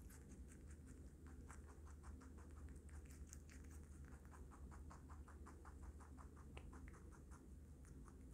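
Baby rabbit chewing a chopped vegetable salad of lettuce, carrot and watermelon close to the microphone: a fast, even run of small crunches, about five or six a second, faint over a low steady hum.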